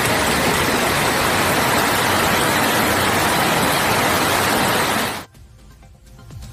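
Heavy rain pouring onto a wet road, a steady hiss that cuts off suddenly about five seconds in.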